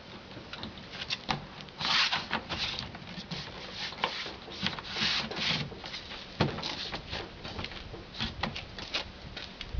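Hands working on car door parts being put back together: irregular plastic and metal clicks and knocks mixed with short scraping rubs. The longest scrapes come about two and five seconds in, and a single sharp knock about six and a half seconds in is the loudest sound.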